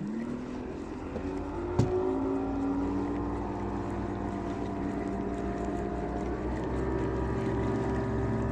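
A motorboat engine running steadily. Its pitch rises briefly at the start, then holds as it grows a little louder. There is one sharp click about two seconds in.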